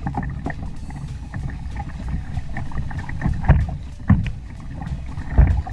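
Wind buffeting the microphone and water lapping against a plastic fishing kayak, with three low thumps in the second half.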